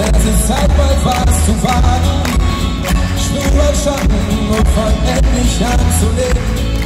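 Live unplugged pop-rock band playing: acoustic guitar, upright double bass and drums, with a wavering melody line above. The low end is heavy and booming.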